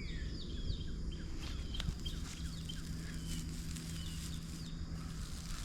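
Small birds chirping over and over in short falling chirps, with faint scattered rustles and crackles from hay being pulled off a bale, and a steady low hum underneath.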